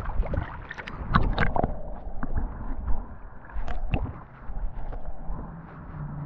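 Muffled sound of water around a camera held underwater in shallow water: sloshing and splashing with several sharp clicks and knocks in the first few seconds, then a low steady hum comes in near the end.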